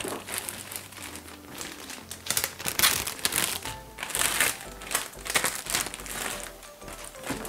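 Clear plastic wrapping film crinkling irregularly as the wrapped toilet seat is handled and turned, with background music underneath.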